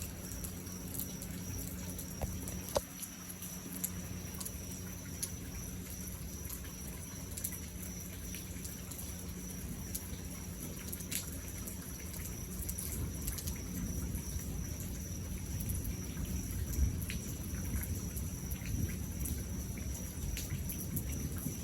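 Rain falling during a night thunderstorm, with scattered drops ticking. A low rumble of thunder grows louder in the second half. A steady high whine runs underneath.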